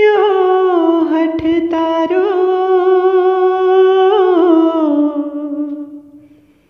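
A solo voice singing a slow, wordless devotional bhajan melody in long held notes with small ornamental turns. The line steps down in pitch and fades out about six seconds in.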